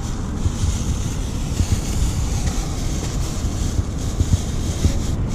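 Wind buffeting the microphone outdoors: an irregular low rumble with a steady hiss over it.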